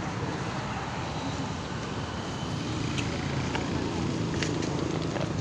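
Steady outdoor background of road traffic with faint voices, and a few brief clicks in the middle.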